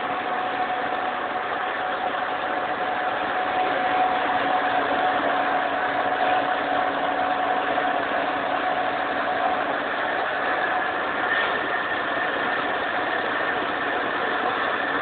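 Machine tool in a workshop running steadily: a continuous mechanical hum under a hiss, with a few held tones, one of which fades out about two-thirds of the way through.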